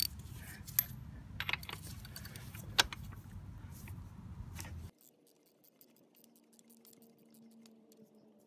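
Irregular metallic clicks and clinks of a ratchet and 19 mm socket loosening the oil strainer fitting, over a low steady rumble that cuts off suddenly about five seconds in, after which only faint handling sounds remain.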